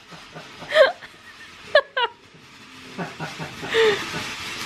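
Ground fountain firework spraying sparks, its hiss and crackle building toward the end. A few short, high-pitched cries cut through about a second in and twice near the two-second mark.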